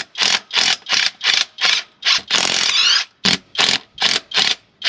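Rapid back-and-forth hand scraping, about two to three strokes a second, with one longer stroke about halfway through that carries a faint squeak.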